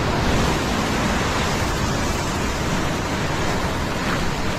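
Heavy sea surf breaking and washing over the rocks at the foot of a cliff: a steady rush of white water.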